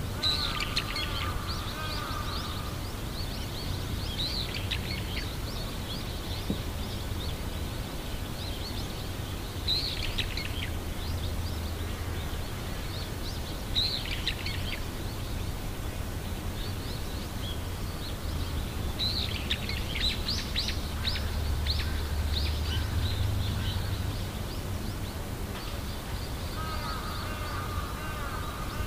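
Small birds chirping and singing in scattered bursts over a steady low rumble, with a short trilling call at the start and again near the end.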